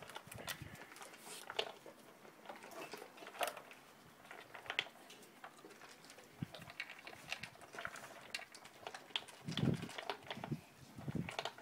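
A dog nosing and pawing at a plastic paw-shaped puzzle feeder for kibble: irregular clicks and knocks of the plastic covers, with some chewing, and a few duller thumps near the end.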